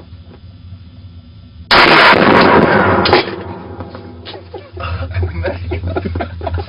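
A gunshot about two seconds in, very loud and distorted, its noisy blast lasting about a second and a half and ending in a sharp crack. Lower rumbling and knocking follow.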